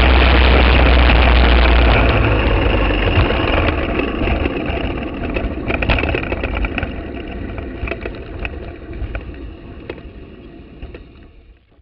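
Briggs & Stratton Animal single-cylinder four-stroke kart engine with wind on the onboard microphone, running steadily at speed, then backing off about two seconds in as the kart slows down. The sound fades gradually, with light rattles and knocks, until it is quiet near the end.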